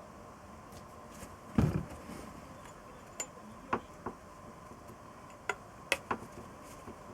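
Hand tools and metal engine parts clinking and knocking during workshop assembly: one dull thump about a second and a half in, then a scattering of sharp metallic clicks.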